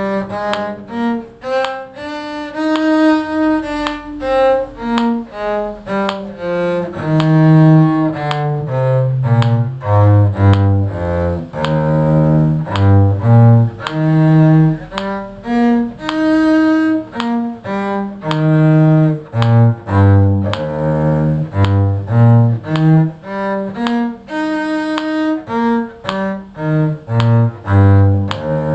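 Cello bowing a steady run of separate notes that climb and fall: an E-flat major two-octave scale and arpeggio practice exercise.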